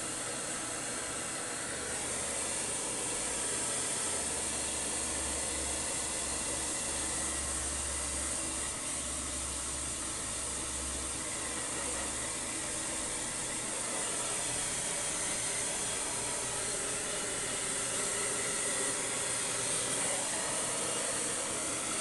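Handheld hair dryer blowing steadily as it dries a husky puppy's wet coat.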